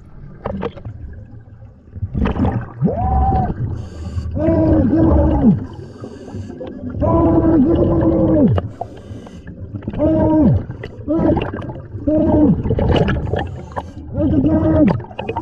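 Underwater breathing through a scuba regulator: a short pitched hum with each breath, falling in pitch as it ends and coming about every two seconds, over a low bubbling rumble.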